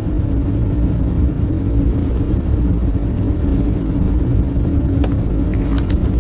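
A motor vehicle running at a steady speed: a continuous low rumble with a constant hum, and a few faint clicks near the end.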